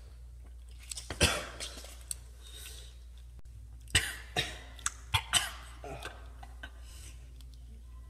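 Coughing and throat clearing from people burned by ghost pepper: two sharp coughs about a second in, then a cluster of four more between about four and five and a half seconds in.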